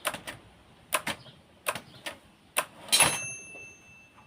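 Consul 1511 manual typewriter working: a run of sharp mechanical clacks, often in close pairs and a little under a second apart. About three seconds in comes a louder clack and the carriage bell rings once and fades. The tabulator and keys are working again after the loose tab rack was realigned and retightened.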